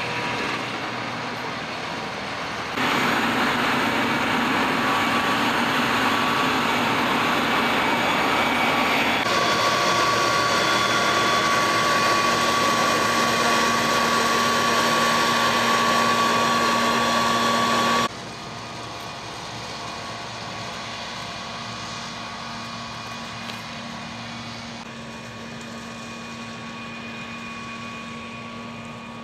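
Self-propelled cotton picker running as it harvests: a steady engine and machinery noise with a high whine. It is loudest for a long stretch in the middle, and the level changes abruptly several times.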